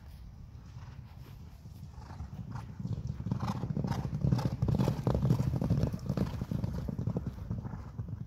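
Horses galloping loose across a grass paddock: a rapid clatter of hoofbeats that builds from about three seconds in, is loudest around the middle and fades toward the end.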